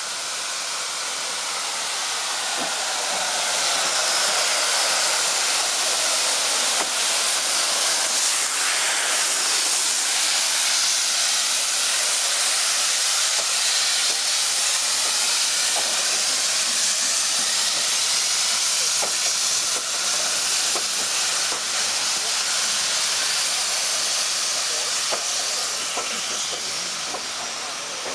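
Steam locomotive letting off steam: a loud, steady hiss that swells over the first few seconds and then holds.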